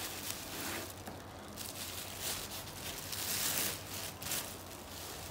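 Plastic wrapping crinkling and rustling in hand as a plastic-bagged statue base is lifted out of a foam-lined box, loudest about three seconds in.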